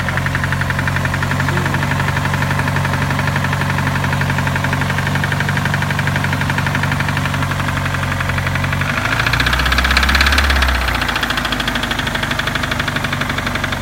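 Subaru Legacy's EJ25D 2.5-litre flat-four running with a fast, even knock: the engine knock this car has. About nine seconds in the engine gets louder for about two seconds, then settles back.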